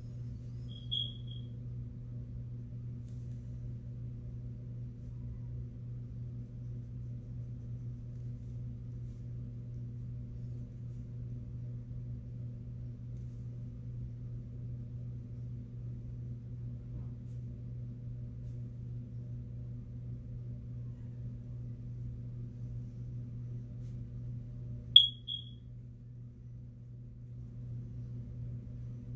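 Two short, high electronic beeps, one about a second in and a louder one about 25 seconds in, over a steady low hum.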